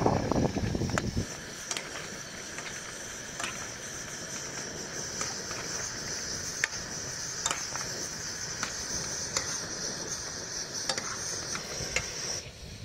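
Sugar syrup bubbling in a nonstick pan as fried milk buns are turned through it with a metal ladle: a steady high hiss with scattered sharp pops. It cuts off suddenly near the end.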